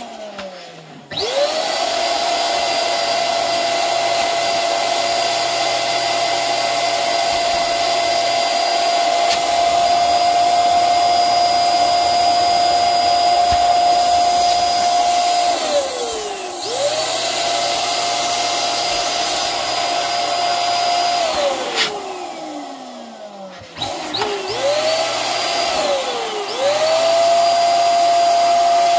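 Electric balloon air pump switched on and off: each time it spins up to a steady high whine and then winds down. There is one long run of about fifteen seconds, then shorter ones of about five, one and three seconds, topping up a balloon in a stuffer that is leaking air through its open sides.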